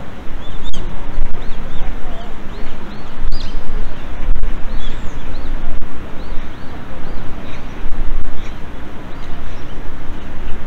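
Birds chirping repeatedly over a loud, steady low rumble of outdoor noise.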